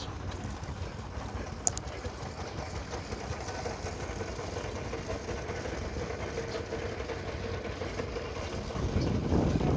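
Threshing machine driven by a steam engine, running steadily with a low hum and a single sharp click about two seconds in; the sound grows louder near the end.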